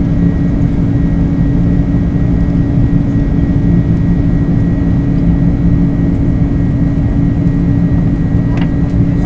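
Jet airliner cabin noise: the engines and airflow make a loud, steady, even rush with a constant low hum, heard from a seat by the window.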